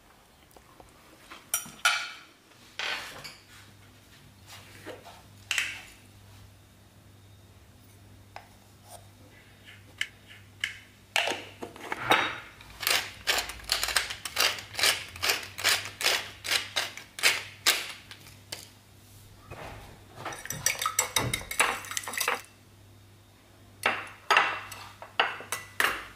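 Kitchen utensil sounds over a glass dish: a salt or pepper grinder twisted over a raw egg gives a long run of regular crackling clicks, then a fork beats the egg against the glass dish in fast clinking strokes, with a few more strokes near the end.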